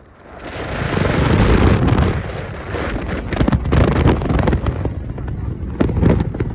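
Wind buffeting the microphone: a loud, uneven rumbling rush that comes up about half a second in and gusts on, with scattered crackles.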